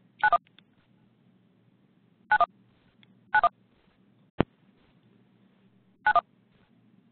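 Short dual-tone telephone beeps of the kind a phone keypad or conference line makes: four quick double beeps at uneven gaps, with one sharp click just after the middle.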